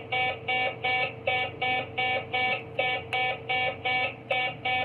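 Toy robot's electronic beeping in a steady rhythm, about three beeps a second, as it carries out a "turn left" command.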